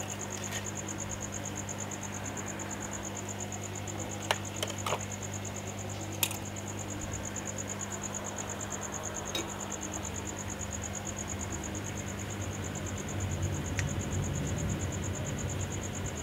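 A cricket trilling steadily and continuously over a low steady electrical hum, with a few faint clicks scattered through.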